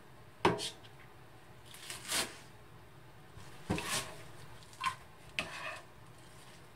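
A chef's knife cutting garlic chives on a plastic cutting board: several separate sharp knocks of the blade through the stalks onto the board, the loudest about half a second in.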